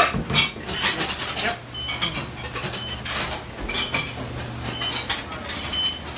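Working restaurant kitchen: a steady low hum, likely the range-hood exhaust fans, under scattered clinks and clatter of pots, pans and utensils, with a few short metallic rings.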